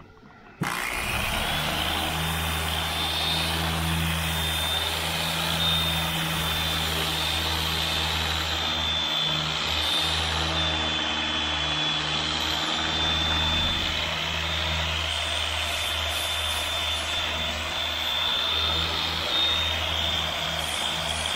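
Porter-Cable electric angle grinder with a sanding disc, switched on about half a second in and then running steadily with a high whine, used to sand paint off the edges of a pickup tailgate.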